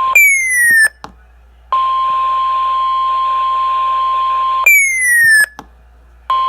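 NOAA Weather Radio warning alarm tone: a single steady high tone over radio hiss, signalling that a warning is about to be broadcast. It is broken twice by a short, louder, falling electronic chirp, each followed by a brief lull.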